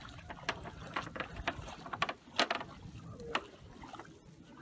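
Footsteps of several people on a narrow raised wooden plank walkway, the boards knocking and creaking irregularly, about two sharp knocks a second.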